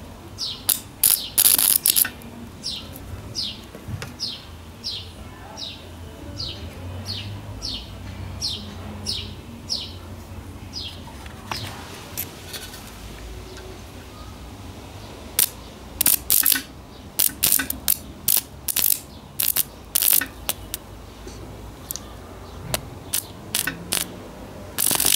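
Homemade transformer wire welder arcing as twisted copper wire ends held in pliers touch the electrode: short bursts of loud crackling, a few about a second in and a dense run later on, with more near the end. Through roughly the first ten seconds a bird repeats a short falling chirp about twice a second.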